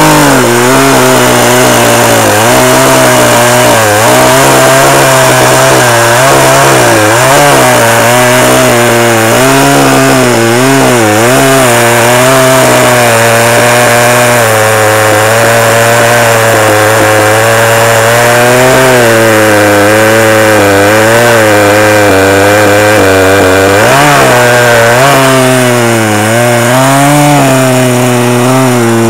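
Poulan Pro 42cc two-stroke chainsaw cutting through a sugar maple log. The engine holds high revs under load, its pitch dipping and recovering again and again as the chain bites into the wood.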